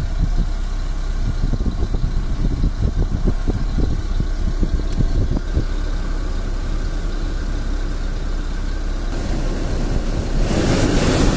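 Car heater blower motor running loose in the hand over a low engine idle. The fan speed is turned up near the end and the rush of air grows much louder. There is only air noise, with no whine, hum or grinding: the blower motor's bearings are sound.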